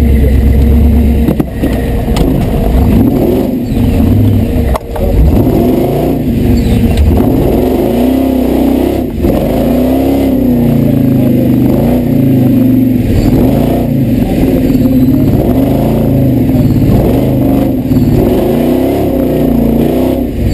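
Supercharged V8 engine of a Toyota Land Cruiser competition truck revving up and easing off again and again as it is driven over rough ground, heard from inside the cab, with a few knocks from the truck over the terrain.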